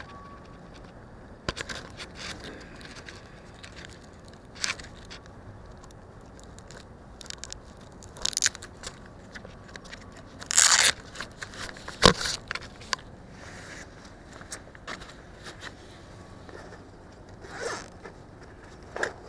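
Irregular close crackles, clicks and short scrapes of grass blades brushing against a camera lying in the grass, over a steady low hiss. The loudest are a longer scrape about ten and a half seconds in and a sharp click about a second later.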